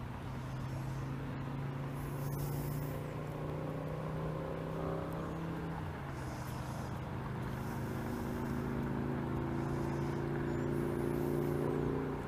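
Steady engine hum of a motor vehicle, its tone changing about halfway through.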